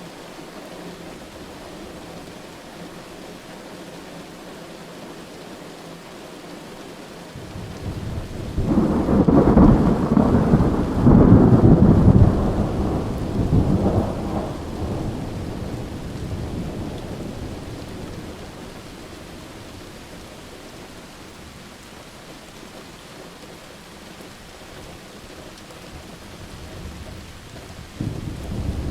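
Steady rain with a long roll of thunder that builds about a quarter of the way in, peaks in a few loud cracks and rumbles, then slowly dies away; a new rumble starts near the end.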